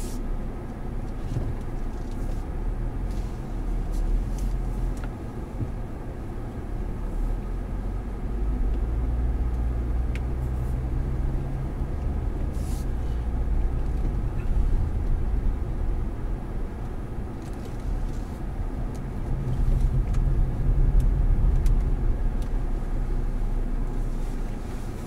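Cadillac CTS Sport Wagon driving slowly, its engine and tyre rumble heard from inside the cabin, swelling louder twice as the car moves off.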